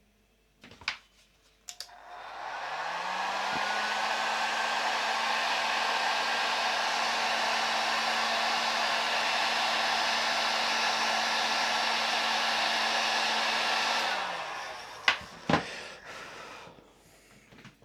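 Handheld hot-air blower shrinking heat-shrink tubing over crimped wire joints. It is switched on about two seconds in, its motor spinning up to a steady pitch under a wide rush of air. It runs for about twelve seconds, then winds down. A few sharp clicks come before and after it.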